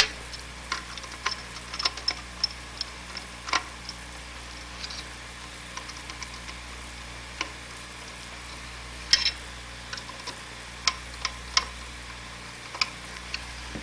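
Light, irregular metallic clicks and ticks of screws being tightened into a Hewlett-Packard oscilloscope's metal chassis, over a steady low hum.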